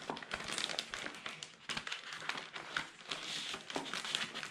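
Clear plastic kit bag crinkling and rustling as hands move the paper pieces inside it, with many small clicks.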